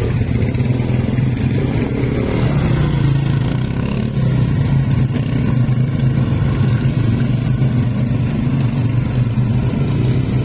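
ATV (quad bike) engine running at a steady pitch, a loud low drone with no clear revving.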